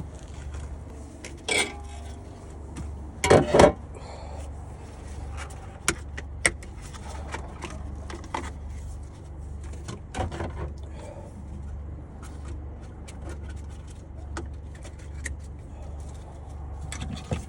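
Metal clinks and knocks from a socket wrench and bolts as the battery box's bolts are undone by hand, louder clusters about a second and a half, three and a half and ten seconds in, over a steady low hum.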